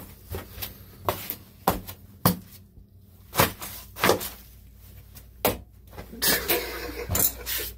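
Sneaker stomping on a tiled bathroom floor to crush cockroaches: about ten sharp, irregularly spaced stomps.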